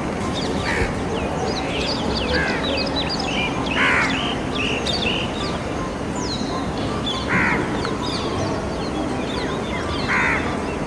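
Birds calling: a busy stream of quick chirps and whistles, with four louder, harsh calls spread through it.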